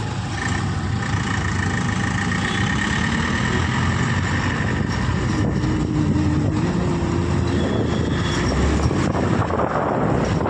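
Honda Activa scooter riding slowly in town traffic: its small single-cylinder engine running steadily under continuous road and traffic noise, with nearby trucks running.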